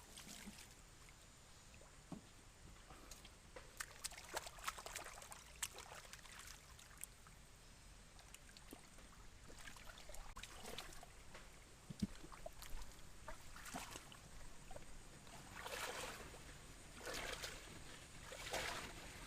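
Faint sloshing and splashing of muddy pond water as hands feel through it for fish, with scattered small clicks and two louder splashes near the end.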